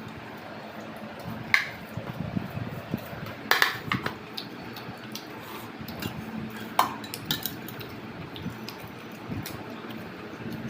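Cutlery clinking against a dish during a meal: a few separate sharp clinks with a short ring, the loudest about a third of the way in, over a steady low hum.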